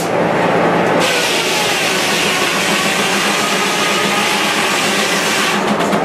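Circular sawmill head saw cutting through a timber on the carriage. The cutting hiss starts sharply about a second in and stops shortly before the end, over the steady hum of the running mill.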